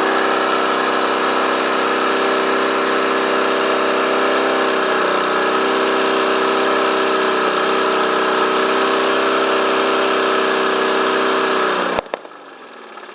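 Lawn mower engine running steadily, then cut off with a sharp click about twelve seconds in. It winds down, its pitch falling as it fades.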